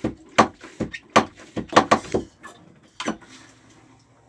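Jabsco manual marine toilet pump worked rapidly by hand, a fast run of strokes about two to three a second, flushing fresh water through the bowl and discharge pipe. The pumping stops a little after two seconds in, with one last stroke about a second later.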